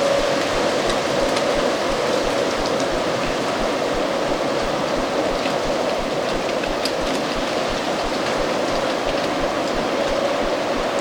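Stormy autumn wind blowing steadily, with dry leaves rustling and ticking along the ground.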